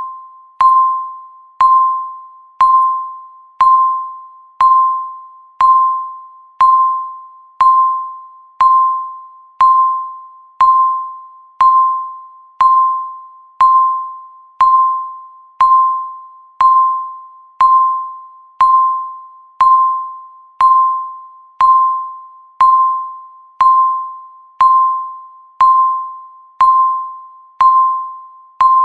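Countdown timer beeping once a second: a mid-pitched electronic beep that starts sharply and fades away before the next, steady and even, about 29 beeps in all.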